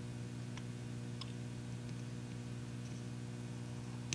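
Steady low hum with a few faint ticks, the last a little louder near the end, as tweezers and a soldering iron tip are worked at a wire on a small flight-controller circuit board.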